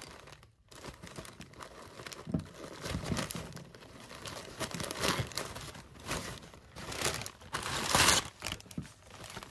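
Clear plastic bag crinkling and rustling in irregular bursts as it is handled and pulled out of a cardboard box, loudest about eight seconds in.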